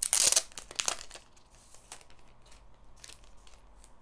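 Clear plastic sleeve crinkling in the hands as it is opened and a stack of photo cards is taken out. The crinkling is loudest in the first second, then only a few faint rustles follow.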